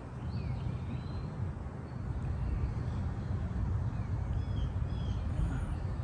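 Birds chirping: short, scattered calls every second or so over a steady low rumble.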